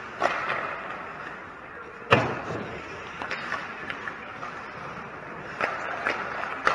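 Ice hockey play at the net: skates scraping the ice over a steady rink din, with a loud knock about two seconds in and a few sharper clacks of sticks and puck near the start and toward the end.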